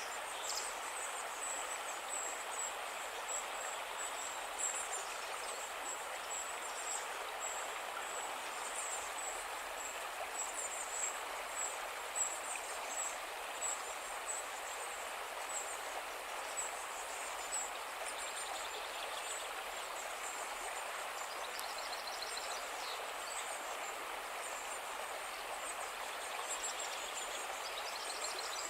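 Calm river water flowing with a steady rushing sound, with faint high chirping repeating over it throughout.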